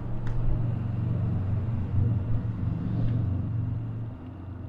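Low rumble of a car on the road, steady and then fading away about four seconds in.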